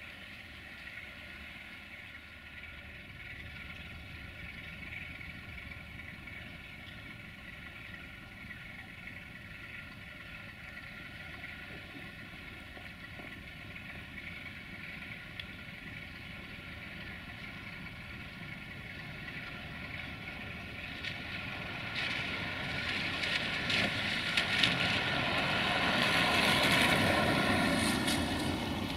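Diesel engines of Romanian Class 060-DA (Sulzer LDE2100) diesel-electric locomotives hauling a freight train, running steadily at a distance. They grow louder over the last several seconds as the train approaches, with sharp clicks and knocks near the end.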